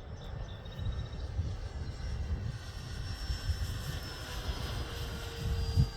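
Electric motor and propeller of an E-flite Draco RC plane whining faintly in flight, the pitch sagging a little in the second half as it passes. Wind buffets the microphone, with a low thump near the end.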